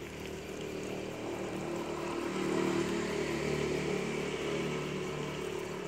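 A small engine running steadily, louder and a little higher from about two seconds in.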